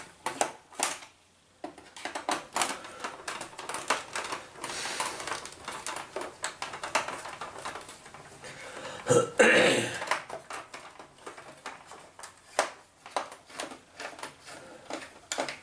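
Small screwdriver backing screws out of a plastic toy cash register's back housing: irregular clicks, ticks and scrapes of the tip in the screw heads and of the hollow plastic case shifting on the bench. One louder rasp comes a little past halfway.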